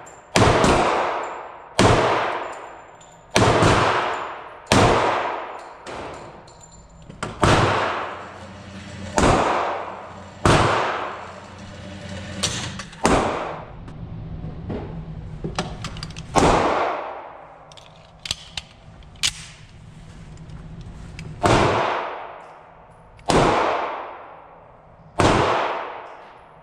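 Springfield Armory 1911 TRP .45 ACP pistol firing single shots about every one and a half seconds, each shot ringing out in the concrete indoor range. Around the middle there is a pause of several seconds broken only by a few small clicks, and then the shots resume.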